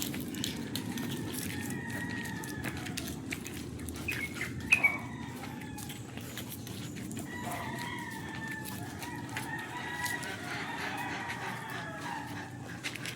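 Chickens calling, with a rooster's long drawn-out crows several times and a brief sharp squawk about five seconds in, over a steady low background noise.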